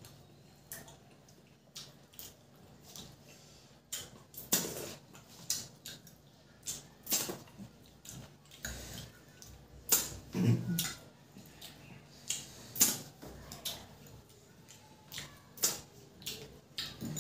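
Hands mixing rice and curry on steel plates and a spoon scraping and tapping a steel serving bowl, with mouth sounds of eating: irregular clicks, taps and scrapes.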